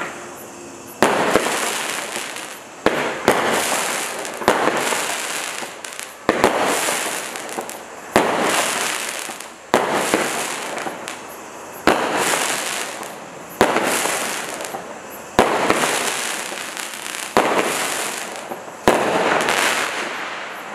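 Standard Fireworks Lakshmi Lantern 12-shot roman candle cake firing about a dozen shots, one roughly every two seconds. Each shot is a sharp report followed by crackling from its crackle-flower burst, which fades away before the next shot.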